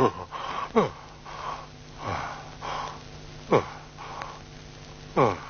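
A man's voice groaning in pain: three short falling moans between wheezing, sniffing breaths.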